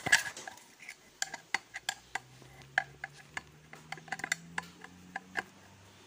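Steel screwdriver working the screw on a vacuum cleaner motor's brush holder: a sharp metal knock as it starts, then a string of irregular clicks and clinks, a few a second, as the bit turns and slips in the screw head.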